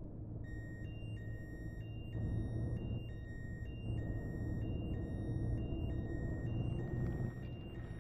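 A vehicle engine running with a steady low rumble, and over it a repeating electronic beep alternating between two pitches, a lower and a higher tone, roughly once a second, starting about half a second in.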